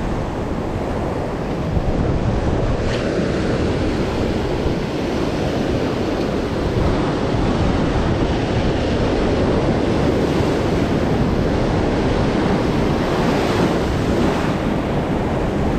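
Surf breaking and washing over shore rocks in a steady, heavy rush, with wind buffeting the microphone.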